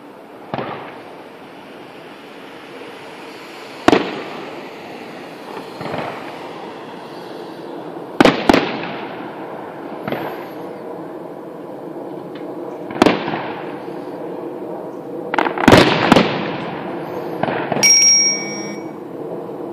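Distant aerial fireworks shells bursting: about eight sharp bangs, each followed by a rolling echo, the loudest a close cluster about three-quarters of the way through. Near the end a phone's message notification tone chimes for about a second over the bangs.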